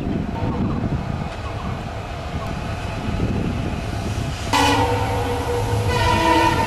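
Diesel locomotive hauling a passenger train, its engine rumbling as it approaches. About four and a half seconds in it sounds its horn in two blasts, the second a little higher in pitch and still going at the end.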